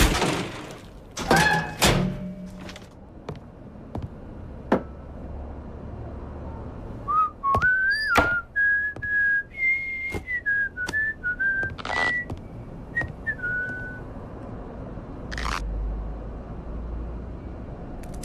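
Cartoon sound effects: scattered sharp clicks and knocks, then a wavering whistle that steps up and down in pitch for several seconds, as a character's wordless whistled voice. A short hissing burst follows near the end.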